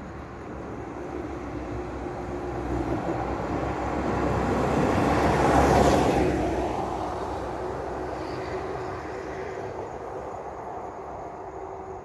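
A car passing on a wet road: the hiss of its tyres on the wet surface, mixed with engine noise, swells as it approaches, peaks about six seconds in as it goes by, then fades away.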